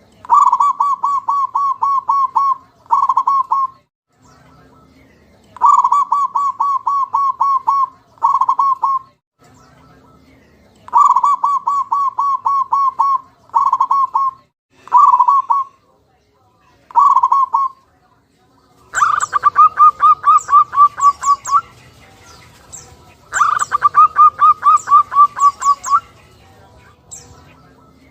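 Zebra dove (perkutut) calling: repeated runs of rapid, evenly spaced cooing notes. Each run is about two seconds long, often followed by a shorter one, with short pauses between.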